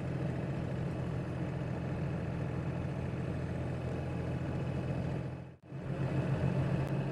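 Steady drone of a car engine and tyres heard from inside the cabin while driving on a highway, dropping out for an instant about five and a half seconds in.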